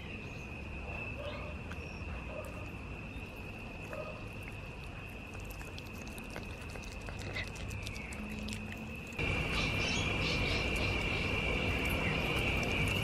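Insects trilling steadily at a high pitch. From about nine seconds in it gets louder, and a dog eating from a plastic takeaway container adds short clicking, smacking sounds.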